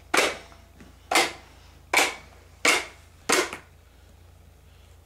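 A toddler blowing five short, sharp puffs of breath with a sippy cup spout in his mouth, about one a second. The last one comes about three and a half seconds in.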